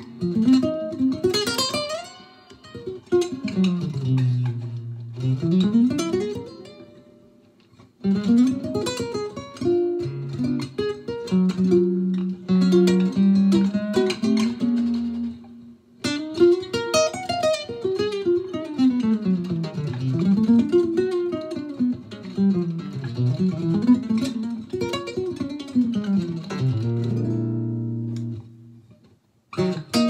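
Cordoba Stage nylon-string electric guitar played through a Fender Deluxe amp: a solo jazz improvisation of rising and falling single-note runs between held chords, with two brief pauses. A faint steady buzz sits under the playing, which the player puts down to a fault in the amp's speaker.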